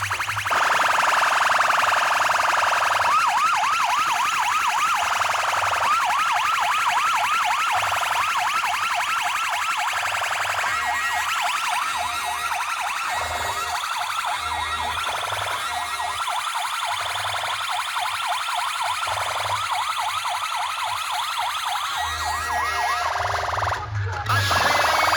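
Electronic siren effect blasted through a large DJ sound system: runs of fast rising whoops, about six a second, each run lasting a second or two, over a steady high wail and pulsing bass.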